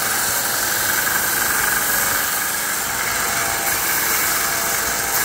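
A small 1x30 bench belt sander running steadily, its belt sanding the edges of a glued-up stack of leather.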